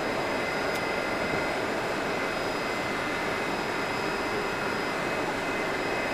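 Steady whooshing hum with a faint constant high whine from a Metrowagonmash 81-765.4 metro train standing at the platform with its doors open.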